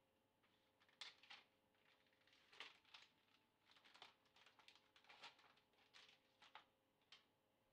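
Faint, scattered taps and clicks, about ten in all, of a small bowl being handled and its contents tipped into a plastic hand-blender beaker.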